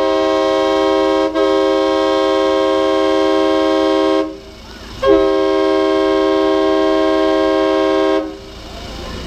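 Air horn sounding two long blasts of several tones at once, the first ending about four seconds in and the second running a little over three seconds after a short gap: the signal that the moved house is in its final position.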